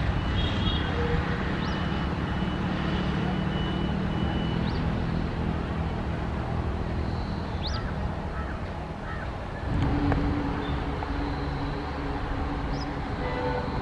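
Passenger train running past on the track, a steady rumble of wheels and coaches with a few short high chirps over it; a new low hum comes in and the sound swells briefly about ten seconds in.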